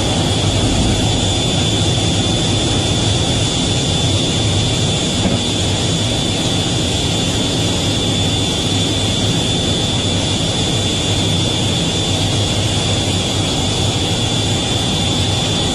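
F/A-18 jet engines running steadily, heard from inside the cockpit in flight just after a catapult launch from a carrier: a constant rumble with a steady high-pitched whine over it.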